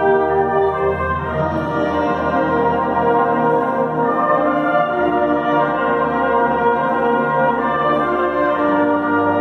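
Brass band of cornets, horns, euphoniums and tubas playing sustained full chords, the harmony moving every few seconds at a steady, strong level.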